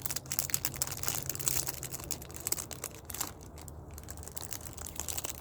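Plastic wrapper of a snack package crinkling and crackling in irregular bursts as it is handled.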